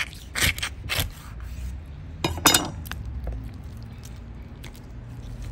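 Large knife chopping and cutting through a raw whole chicken on a wooden cutting board: a few sharp chops with scraping and small ticks between, the loudest a quick double chop about two and a half seconds in.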